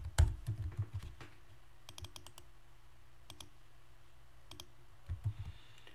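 Computer keyboard keystrokes and clicks: a quick run of key presses at the start, then scattered single clicks and small clusters of clicks, over a faint steady low hum.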